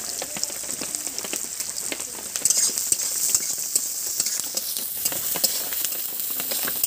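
Sliced onions frying in hot oil in a pan: a steady sizzle with scattered pops and clicks, getting louder about two and a half seconds in.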